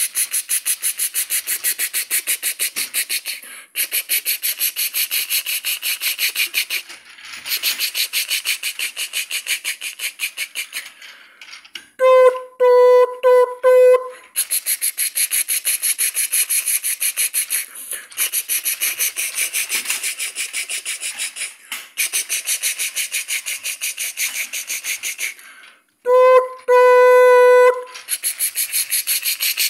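A person imitating a steam train with the mouth: a fast 'chuff-chuff' chugging at about five strokes a second, broken twice by hooted 'toot-toot' whistle calls.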